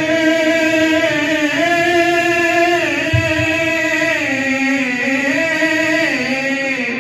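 A man's voice chanting devotional verse in long, held notes, the pitch gliding slowly from one note to the next with hardly a break.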